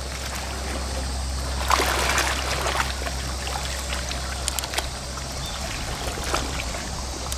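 Small waves lapping and sloshing against the shoreline rocks, swelling to a louder splash about two seconds in, over a steady low rumble.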